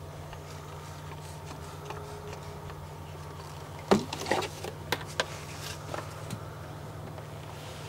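Several quick squirts from a trigger spray bottle of cleaner onto a cockpit windshield, with a few clicks, about four seconds in, over a steady low hum.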